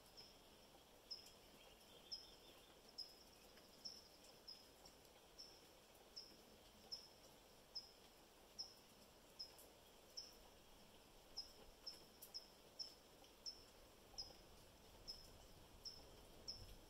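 Faint high-pitched chirp repeated a little faster than once a second, about twenty times, with a few coming closer together near the middle, over a faint steady hiss of light rain.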